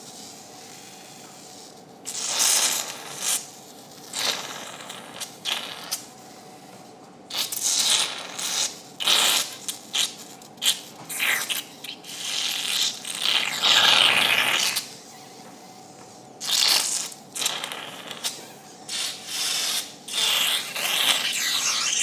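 Surgical suction tip aspirating blood from a dog's nasal cavity during a dorsal rhinotomy, slurping and hissing in irregular bursts as the tip takes in blood and air, with the longest and loudest stretch about two-thirds of the way in. The bleeding is heavy and will not stop until all the soft tissue is out of the nose.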